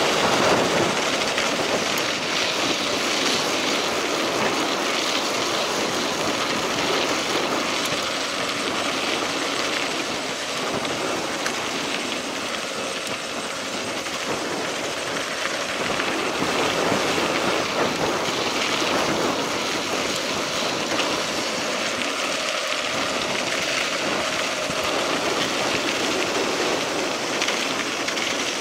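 Mountain bike tyres rolling over a gravel dirt road, a steady rough rumbling noise.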